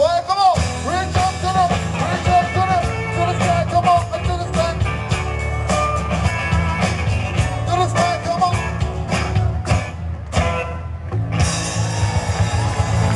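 Live rock-and-roll band playing, with guitars and singing over a steady band sound.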